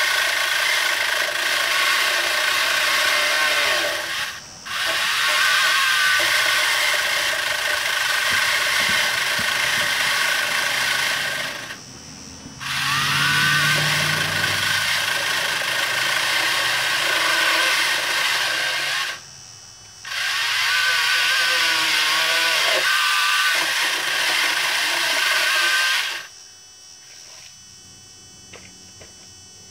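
Battery-powered pole saw, an EGO string-trimmer motor driving a Ryobi pole-saw head, running loud in four long bursts with short pauses between. Its pitch sags at times as the chain bites into a branch, and it stops near the end.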